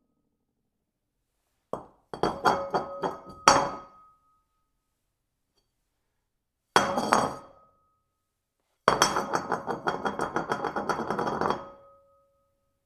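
Porcelain bowl dropped on a hard surface again and again. Each drop gives a sharp clatter of bouncing knocks and a short ringing tone. The last drop, about nine seconds in, rattles in quick repeated knocks for about three seconds before the bowl settles, ringing briefly.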